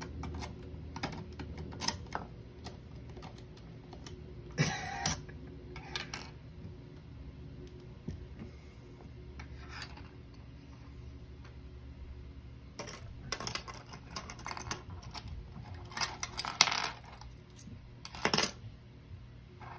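Metal lock picks, tension tools and keys clinking and clattering on a wooden desk as they are picked up and set down: irregular light clicks, with a few louder metallic clinks about five seconds in and again near the end.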